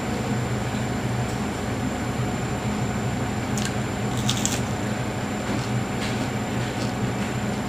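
Electric fan running with a steady hum. A few short, soft clicks of a bite into a soft bread sandwich and chewing come on top of it, mostly around the middle.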